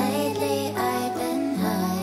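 Background music: steady low held chords under a higher melody of gliding, voice-like notes, which thins out in the last half second.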